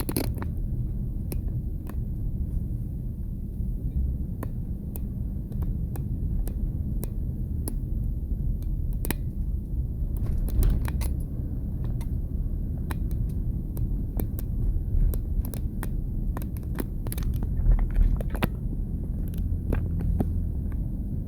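Steady low rumble of a vehicle driving, with scattered sharp clicks and ticks throughout.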